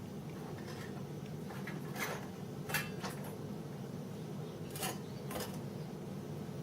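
A few short, light knocks and scrapes of small hard objects being handled and set down, over a steady low hum.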